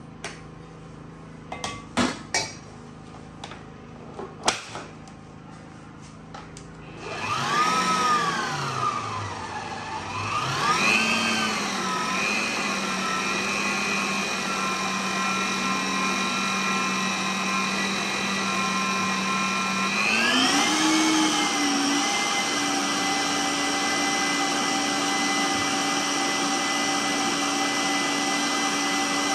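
Stand mixer beating cake batter: a few knocks of bowl and utensils, then the motor starts about seven seconds in, swings up and down in pitch as the speed is set, and runs steadily. About twenty seconds in it steps up to a higher speed and holds it.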